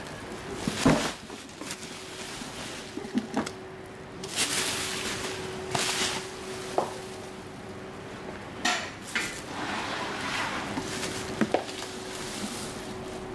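Unpacking noise from a cardboard shipping carton: bubble wrap and plastic packing rustling and crinkling, with scattered knocks of the cardboard drone box against the carton, the sharpest about a second in. A faint steady hum runs underneath.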